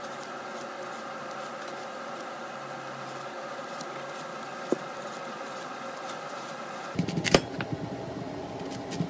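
Faint scraping ticks from a vegetable peeler taking the skin off an apple, over a steady hum. About seven seconds in, a white ceramic knife chops through the apple onto a wooden cutting board, giving a quick cluster of sharp knocks and another knock near the end.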